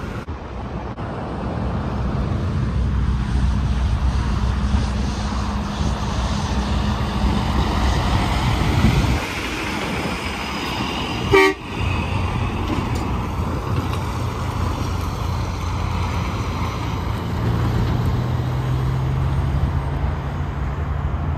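Tractor-trailers passing on an interstate highway: steady engine drone and tyre rush, with a sharp, brief noise just past the middle.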